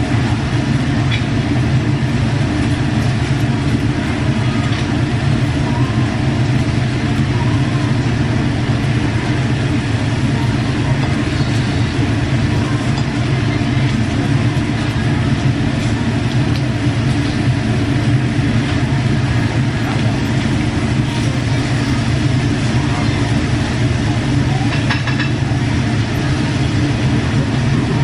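Steady low rumble with an even hiss above it, typical of a Korean barbecue tabletop grill's exhaust ventilation running, with meat sizzling on the grill. A few faint clicks of chopsticks or utensils.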